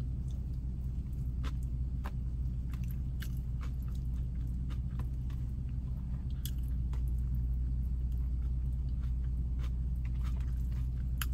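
A person chewing food close to the microphone, with scattered short crunchy clicks, over a steady low hum.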